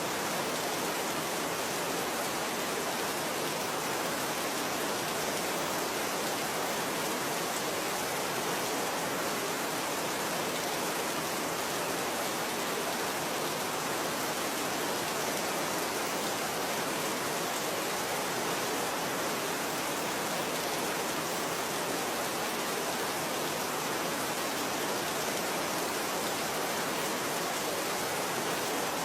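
Steady, even rain falling, a dense hiss with no distinct drops standing out.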